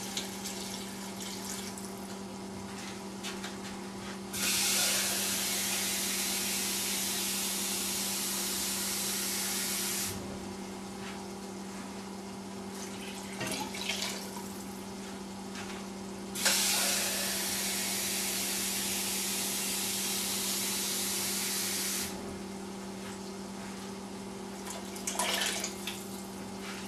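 Water running in a steady stream to fill the soup pot, twice, each spell about six seconds long and starting and stopping sharply, over a steady low hum.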